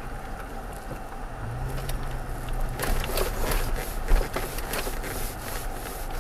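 Inside the cab of a Toyota Tacoma pickup crawling slowly over a dirt road: steady low engine and drivetrain hum. From about three seconds in comes a couple of seconds of crunching and crackling as the tyres roll over gravel and rocks, with one thump partway through as the truck jolts over a bump.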